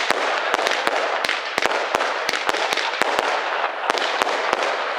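Fireworks going off: a continuous hissing crackle with many sharp bangs, several a second and irregularly spaced.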